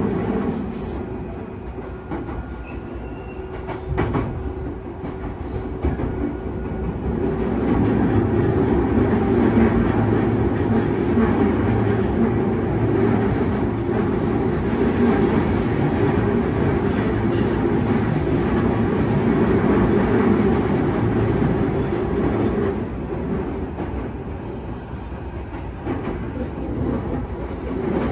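JR East E233-0 series electric train running, heard from inside the car, its wheels clacking over the rail joints of unwelded jointed track. The running noise is louder through the middle and eases near the end, with one sharp knock a few seconds in.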